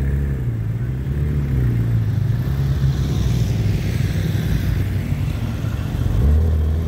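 Engines of classic cars and motorcycles driving slowly past at low revs, a low running hum whose pitch rises and falls. It swells louder and deeper about six seconds in.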